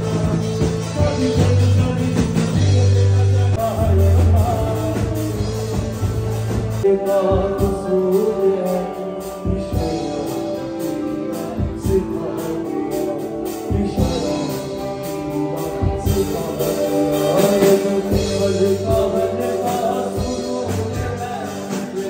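Live band playing a rock song: a male singer over electric guitar, keyboard and drums. Deep bass notes carry the first part, then drop out about a third of the way in, leaving the voice and keyboard over the drum hits.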